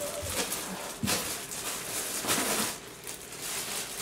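Packaging being handled and pulled apart, rustling and scraping in a string of short bursts.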